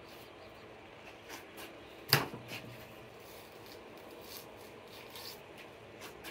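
A hand fillet knife cutting and scraping along the backbone of a large hanging blue catfish as the fillet is taken off: soft rasping strokes, with one sharp click about two seconds in.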